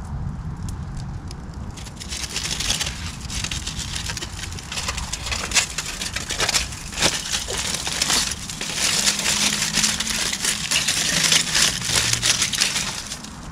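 Aluminium foil crinkling and crumpling as it is wrapped by hand around a baked potato. It starts about two seconds in and goes on as a dense run of quick crackles.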